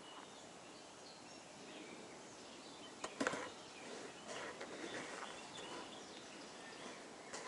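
Faint outdoor ambience with distant birds chirping now and then, and a brief sharp knock about three seconds in.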